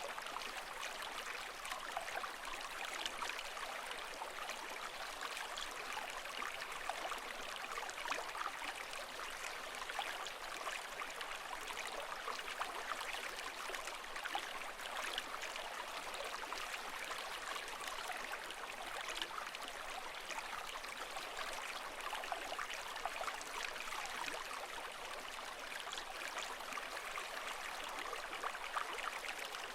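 Running water, a steady trickling and bubbling with no rise and fall of waves.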